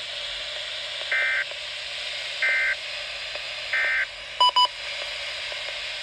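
A weather alert radio receiving an emergency alert: three short bursts of SAME digital data tones about a second and a half apart, then two quick beeps, over a steady radio hiss.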